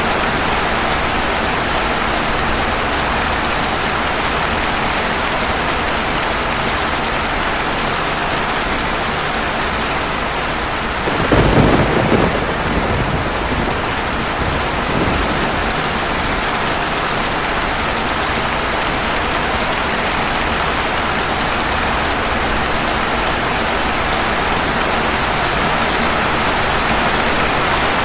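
Steady heavy rain with a thunderclap about halfway through, followed a few seconds later by a fainter rumble of thunder.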